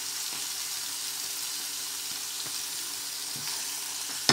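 Raw boneless chicken thigh pieces sizzling steadily in hot oil in a stone-coated nonstick frying pan as they are stirred with a wooden spatula, with a few faint taps: the chicken is just starting to fry. A sharp knock right at the end.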